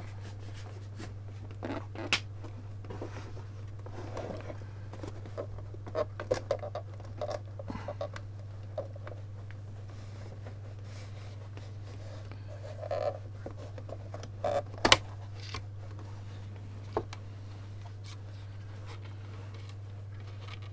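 Scattered plastic clicks, taps and scrapes as a soundbar's plastic housing is handled and prised apart, with a sharper click about fifteen seconds in. A steady low hum runs underneath.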